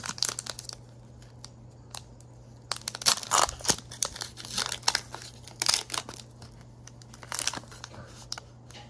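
Foil wrapper of a Pokémon Breakthrough booster pack crinkling and tearing as it is ripped open by hand, then cards slid out of it, in several short bursts of crackle. A low steady hum runs underneath.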